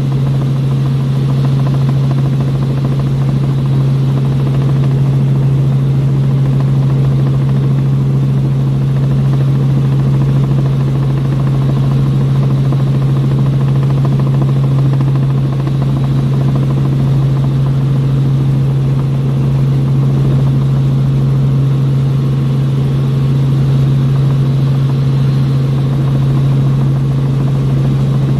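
Helicopter in flight heard from inside the cabin: a loud, steady drone of engine and rotors with a strong, unchanging low hum.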